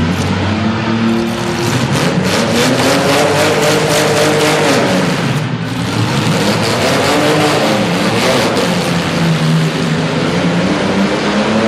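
Engines of several compact demolition derby cars revving, their pitch rising and falling, with a rapid run of sharp ticks through the middle.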